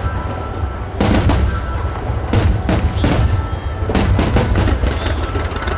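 Star mine fireworks barrage: a quick series of shell bursts, about six sharp bangs over a constant low rumble, with music playing through loudspeakers alongside.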